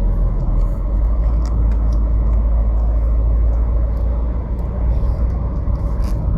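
Car engine running steadily with a deep, even rumble, after a repair of its overheating; it runs smoothly.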